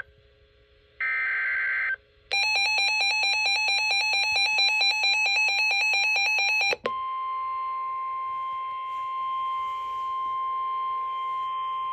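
NOAA Weather Radio emergency alert tones: about a second of screeching digital SAME header data, then an electronic alarm warbling rapidly between two pitches for about four and a half seconds, then the steady 1050 Hz warning tone that announces a severe thunderstorm warning.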